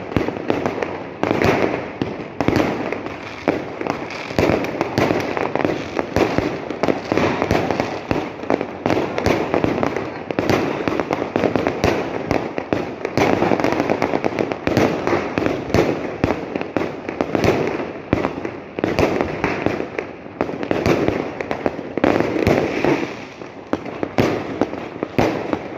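Fireworks going off in a dense, continuous barrage: many overlapping bangs and crackles that swell and ease in waves every few seconds.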